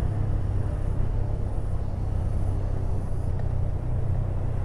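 Motorcycle engine running steadily as it rides along, with road noise.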